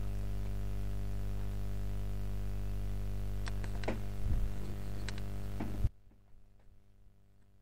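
Steady electrical mains hum on the recording, with a few faint clicks, that cuts off abruptly about six seconds in.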